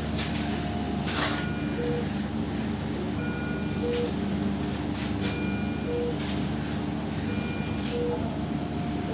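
ICU medical equipment: short electronic alarm beeps, a low beep and a higher two-note beep taking turns, each coming back about every two seconds, over a steady machine hum.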